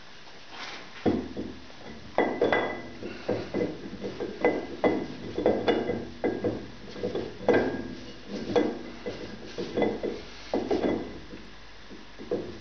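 Steel lathe chuck backplate being fitted onto the lathe spindle by hand, a string of irregular short metallic clinks and knocks, some with a faint ring.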